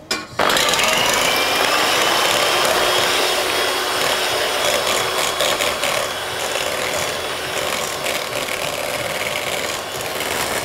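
Electric hand mixer beating egg whites in a stainless steel bowl, its motor and beaters running at a steady speed, starting about half a second in. The whites are being whipped until foamy.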